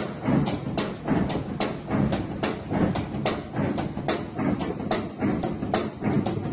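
Band saw cutting machine running, a low rumble with sharp ticks coming about three to four times a second.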